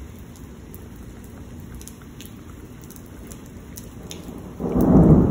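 Steady rain falling, with faint drip ticks. About four and a half seconds in, a sudden loud rumble of thunder breaks in from a positive lightning strike.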